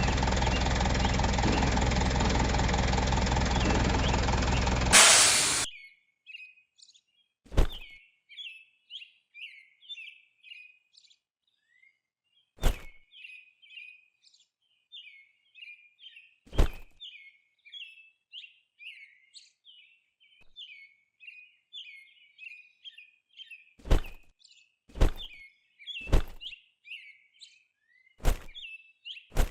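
Music for about the first five seconds, cutting off after a short sharp burst. Then birds chirp in quick, steady runs of short high calls, with sharp single knocks now and then, a few in quick succession near the end.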